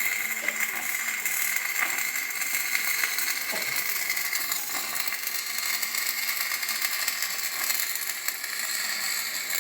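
Mechanical clicking and rattling over a steady high hiss, with scattered small clicks.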